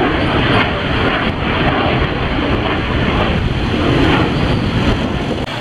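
Steady, loud traffic noise with wind rumbling on the microphone, as of motorbikes and vehicles moving through a city street.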